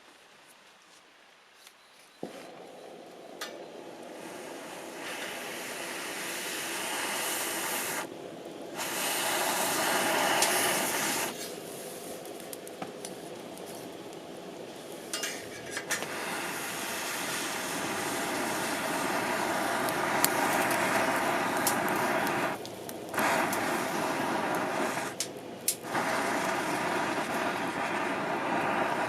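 Wood fire in a Picogrill-style fire pit, crackling, with a loud rushing hiss that starts suddenly about two seconds in and breaks off briefly several times.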